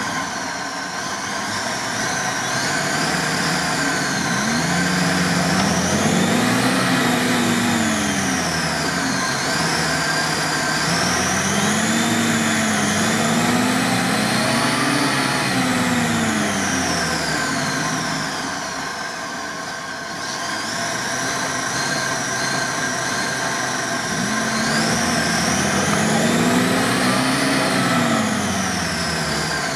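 Off-road 4x4 engine revving up and easing off in several long waves under load, working to free a UAZ stuck in a flooded mud hole. It briefly drops back about two-thirds of the way through.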